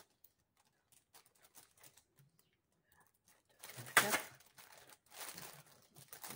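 Plastic-wrapped stacks of small clear plastic storage boxes being handled: faint light clicks of the boxes at first, then loud crinkling of the plastic wrap about four seconds in, and again about a second later and near the end.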